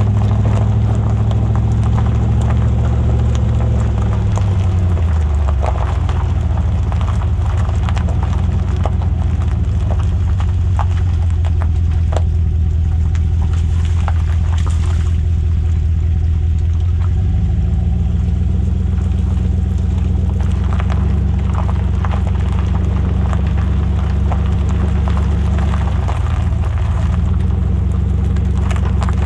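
5.3 L V8 exhaust through a Flowmaster Super 44 muffler with the resonator deleted, running steadily above idle with a deep rumble. Its pitch eases down around five seconds in and rises a little again about seventeen seconds in.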